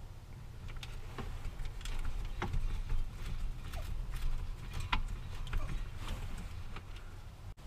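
Scattered light clicks and knocks at irregular intervals from hand work refitting an interior panel and its screws in a van.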